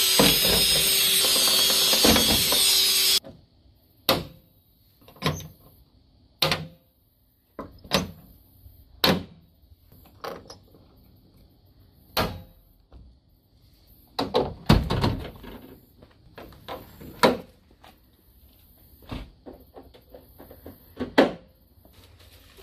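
Power drill running steadily, drilling a hole through the Jeep Wrangler JK's fender for the snorkel mount, then stopping abruptly about three seconds in. After that, scattered light knocks and clicks of the plastic snorkel and tools being handled.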